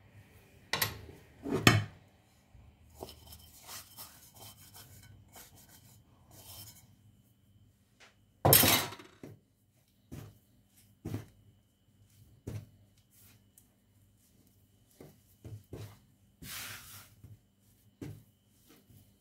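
A metal spoon knocks and scrapes against a ceramic bowl while stirring yeast dough, with two sharp knocks about a second in. A louder knock comes about eight and a half seconds in. After it, hands knead the dough on a countertop, giving soft irregular thumps and rubbing.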